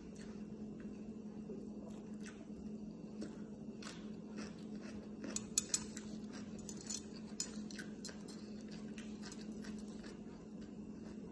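Small clicks and clinks of a plate and food being handled by hand, as flatbread is picked up and pulled apart, with a quick cluster of sharp clicks about halfway through. A steady low hum runs underneath.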